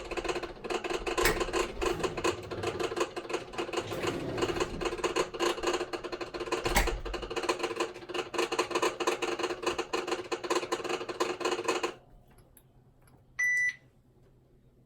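Hitachi BeatWash washing machine running with a dense, steady rattling clatter: the abnormal noise it made before breaking down. The noise stops abruptly about twelve seconds in, and a little later comes one short electronic beep.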